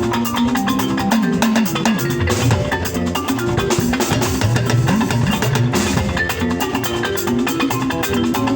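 Music with a steady beat: drums and percussion over a bass line.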